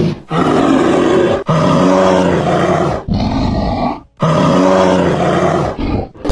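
An animal calling: four long, low, pitched calls with short breaks between them, and a brief fifth call near the end.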